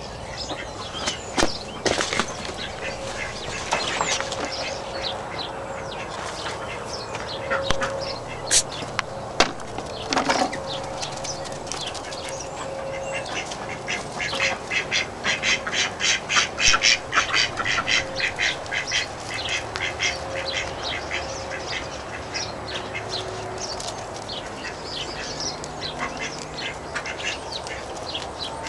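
Ducks quacking on and off, with a fast run of quacks about halfway through.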